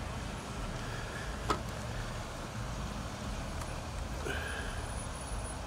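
Distant traffic from many cars, a steady low rumble of engines, with one sharp crack about one and a half seconds in.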